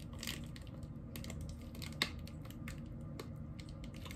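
Scattered small clicks and crinkles from a plastic baggie of juice squeezed and sucked at the mouth, with one sharper click about two seconds in.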